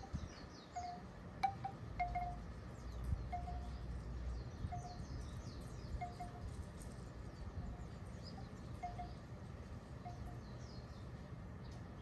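A short, clear chime-like note, often struck twice in quick succession, repeating about once a second over light wind on the microphone, with faint high chirps of birds or insects behind. The wind is a little stronger in the first few seconds.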